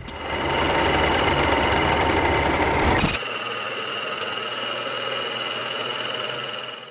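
A steady mechanical whirring hum, like a small motor running, that drops suddenly to a quieter hum about three seconds in.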